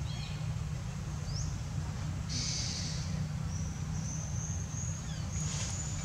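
Outdoor ambience: a steady low rumble, with thin, high bird chirps and whistles above it. A brief hiss comes about two seconds in, and a run of repeated high whistles follows in the second half.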